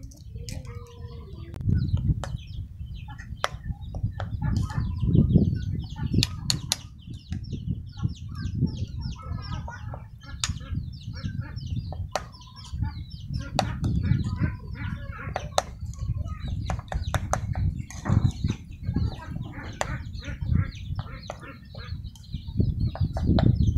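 A metal spoon stirring and beating duck eggs into minced pork and fish paste in a ceramic bowl, with many sharp clinks of spoon against the bowl and wet mixing. Chickens cluck in the background.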